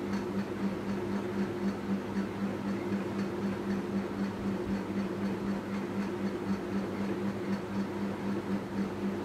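Metal spatula scraping and stirring crumbly egg halwa as it fries in ghee in an aluminium pan, over a steady low hum that pulses a few times a second.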